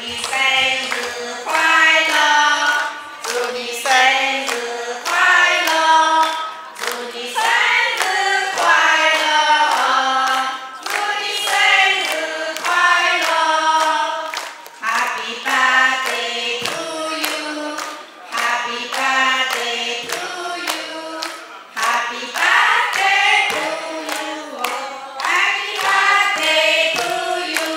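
A group of women singing a song together, clapping their hands along in a steady beat.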